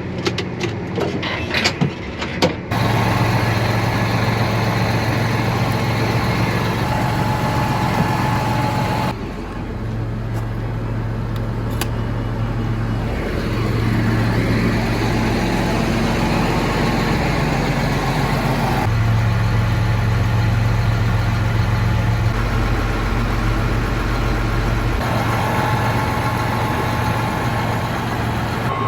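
A few clicks and knocks, then a farm vehicle's engine running steadily with a low drone. The sound changes abruptly three times, as if cut between takes.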